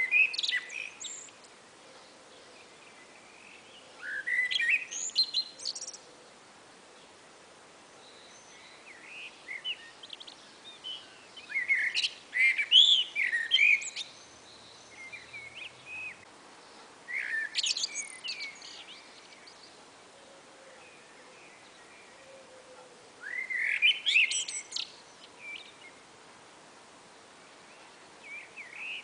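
Two blackbirds singing back and forth. Their song comes as short phrases every few seconds, each climbing into higher, squeakier notes at its end.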